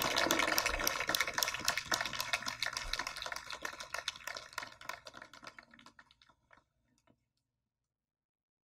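Audience clapping after a speech, a dense patter of claps that fades away and is gone about six seconds in.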